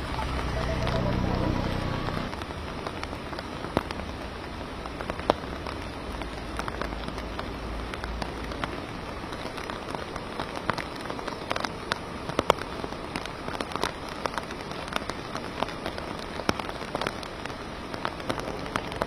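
Heavy monsoon rain falling steadily, with many sharp taps of drops striking close by. A low droning hum sounds in the first couple of seconds.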